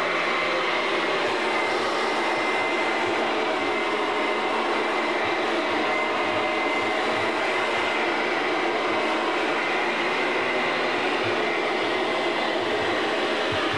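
Electric upright vacuum cleaner running steadily, a constant loud rush of air with a thin high whine over it.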